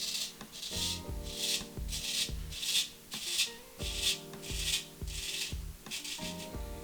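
A 1929 HMC Cutlery straight razor scraping through stubble in a lather of hair conditioner, in a regular series of short strokes. Background music with a low beat plays underneath.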